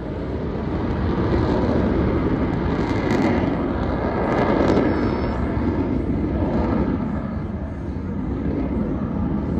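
Aircraft flying past: a loud, steady rumble of engine noise that swells to a peak midway, eases off and then builds again.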